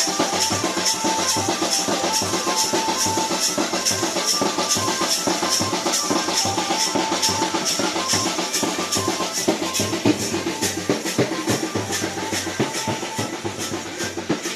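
Loud dance music with a fast, steady drum beat and a melody running over it.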